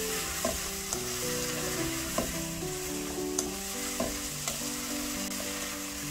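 Sliced vegetables and pork sizzling in a hot nonstick frying pan as they are stir-fried with a wooden spatula, with sharp taps of the spatula against the pan now and then.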